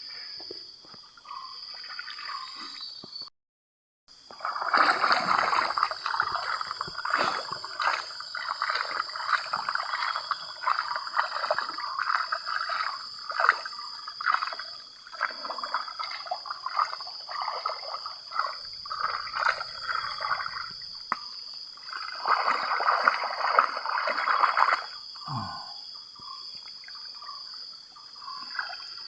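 Water sloshing and trickling, with many small irregular knocks and scrapes, while material is gathered and worked for gold panning. It is loudest in the middle and drops back near the end.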